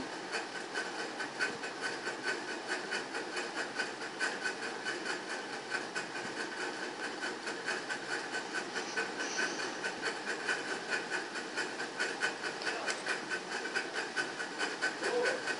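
Steady hiss of background noise with a fast, even ticking, about five ticks a second.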